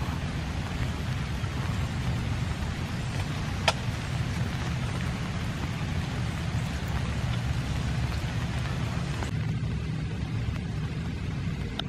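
Steady rain falling, an even hiss over a low rumble, with one sharp click a little under four seconds in. About three quarters of the way through the high part of the hiss thins out.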